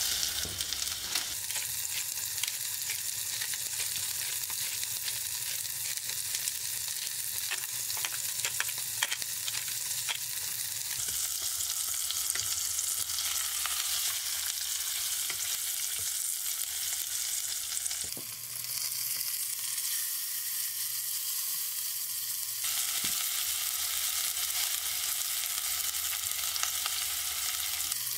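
Salmon fillet frying in hot oil in a small ceramic-lined pot: a steady high sizzle, with a few light clicks partway through.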